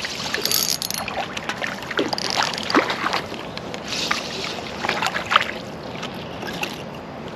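A hooked rainbow trout thrashing at the water surface as it is played in, giving a run of short, irregular splashes.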